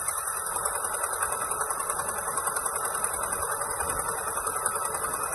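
Concrete-pouring machinery running steadily, a motor with a fast, even pulse and a high whine over it, while a gable wall is being cast.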